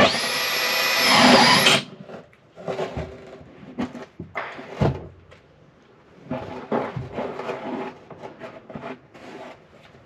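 Cordless drill with a hole saw cutting through a wooden floor, the motor rising in pitch and then stopping about two seconds in. Scattered wooden knocks and clatter follow as the tool and the cut-out disc are handled.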